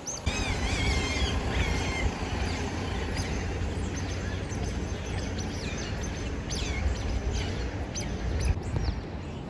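Repeated high chirping calls, some with quick downward sweeps, over wind buffeting the microphone.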